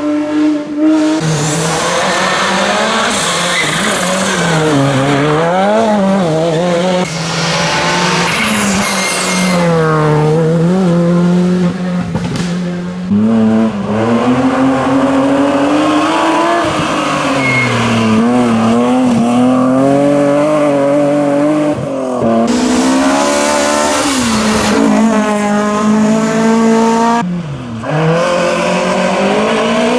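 Rally car engines revving hard through the gears, the pitch climbing and dropping again and again as they accelerate, shift and brake. The sound breaks off abruptly a few times as one car gives way to the next.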